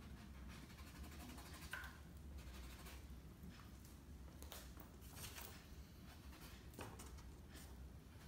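Near silence: faint scattered taps and scrapes of an oil-paint brush on canvas, and the brush being wiped on a cloth, over a low steady hum.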